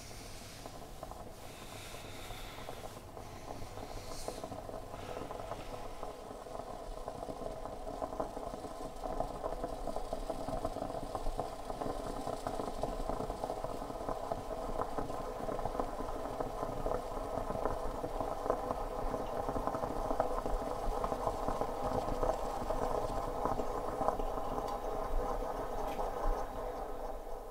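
A dense mechanical drone with a fast rattling texture, building steadily louder over about twenty seconds and cutting off abruptly at the end. It is a film sound-design swell rather than a real machine.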